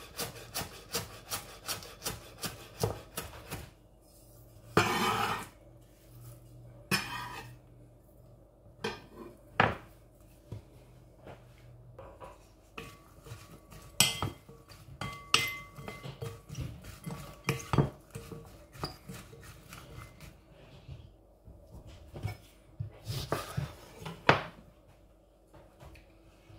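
A chef's knife chopping chives on a wooden cutting board, a quick even run of chops for the first three seconds or so, then a scrape. After that a wooden spoon tosses the chopped vegetables in a glass bowl: scattered knocks and clinks against the glass, some of them ringing faintly.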